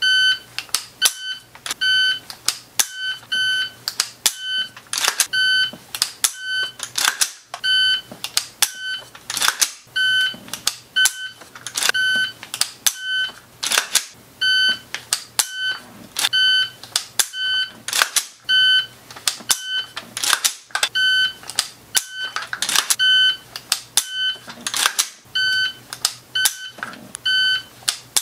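Electronic shot timer beeping about once a second, a short high beep each time, during AR-15 dry-fire drills. Between the beeps come sharp clicks and knocks from the rifle being raised, shouldered and dry-fired.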